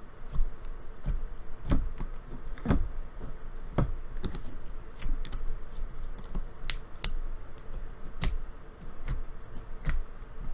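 Butter slime being squished, stretched and poked by hand, giving a run of irregular sharp clicks and pops.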